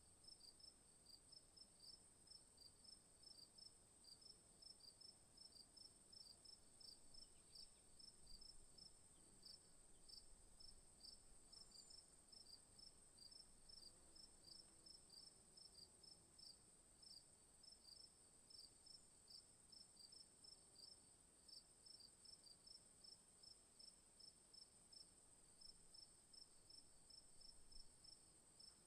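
Insects in the bush: a steady high-pitched drone, with a chirp repeating a few times a second.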